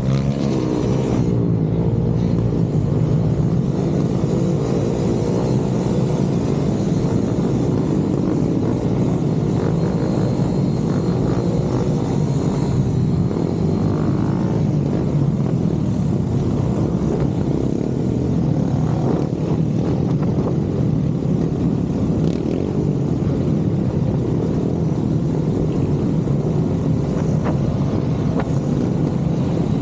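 Motorcycle engine running at a steady pace, with road and wind noise.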